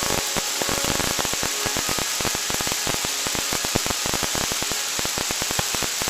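Radio static from a receiver on the SASMEX alert broadcast: a steady crackling hiss made of rapid clicks, with faint steady tones buried under it in the first couple of seconds.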